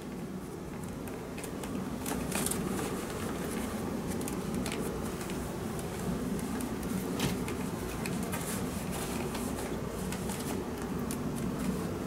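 Cloth rustling with many small irregular crackles and clicks as a button-front shirt is worked onto a mannequin's arm and shoulders against a bedsheet, over a steady low hum.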